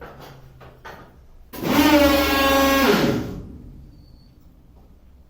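A few clicks, then a loud horn-like blast for about two seconds that sags in pitch as it dies away.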